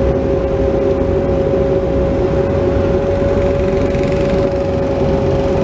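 Bobcat 337 mini excavator's diesel engine running steadily under working load as the arm swings and dumps dirt, with a constant high-pitched hum over a low rumble, heard from inside the cab.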